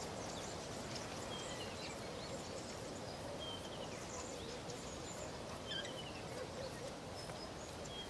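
Steady outdoor ambience with a soft even hiss and a few faint, short bird chirps scattered through it.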